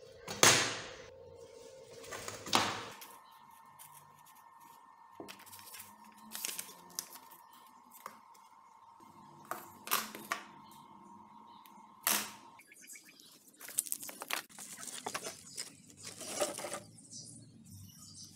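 Sharp knocks and clicks of a steel knife blade being picked up, handled and set down on a wooden worktable, the loudest about half a second in, at about two and a half seconds and at about twelve seconds. A faint steady hum runs under the middle stretch.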